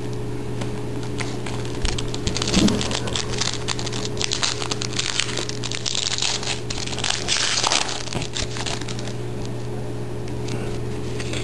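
Crinkling and crackling of a shiny trading-card pack wrapper being handled and opened, with cards handled between the fingers; the crackle is busiest in the middle. A steady low hum runs underneath.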